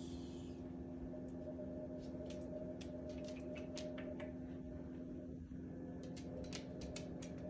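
Steady low electrical hum in a room, with scattered light clicks from about a second and a half in, which fit a cat's claws tapping on a laminate floor.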